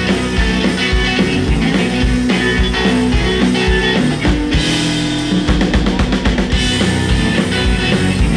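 Blues-rock trio playing live: baritone guitar and electric lead guitar over a drum kit, loud and dense. About halfway through the drums break into rapid hits.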